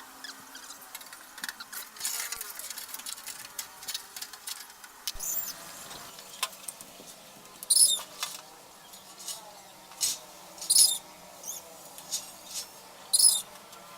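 Clicks, taps and scraping of parts being handled during washing-machine repair, with three short high-pitched squeaks in the second half.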